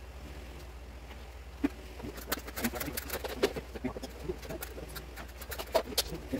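Irregular knocks and clatter of a long wooden crown molding strip being handled and fitted against the top of a cabinet, starting a couple of seconds in after a quiet hum.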